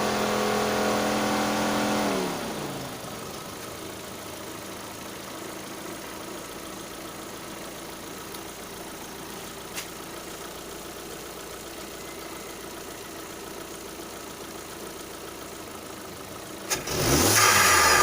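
Proton Exora Bold's 1.6-litre turbocharged engine held at raised revs, falling back to idle about two seconds in. It idles steadily, then is blipped hard near the end, rising quickly with a loud hiss over the engine note.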